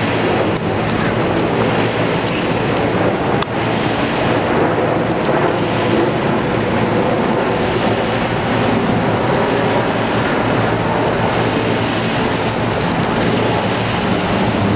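Steady, loud jet noise from the Boeing 777-200ER's twin turbofan engines as the airliner flies overhead. A brief click about three and a half seconds in.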